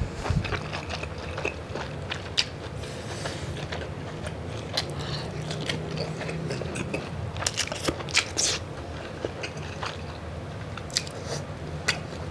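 A person chewing a saucy tiger prawn close to the microphone: wet mouth smacks and clicks at an uneven pace, with a cluster of louder crunchy snaps about eight seconds in.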